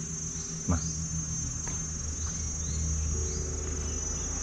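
A gong rubbed with the palm hums with a deep, steady tone, and a second, higher tone joins about three seconds in. By local legend, a gong that sounds out this way means a wish will come true. A steady high insect drone runs underneath.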